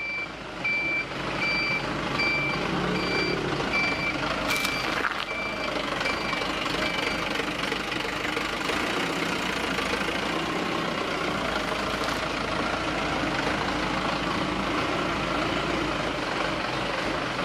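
A truck's reversing alarm beeps about three times every two seconds over the steady noise of its running engine, the beeps fading out after about seven seconds. There is a single sharp click about four and a half seconds in.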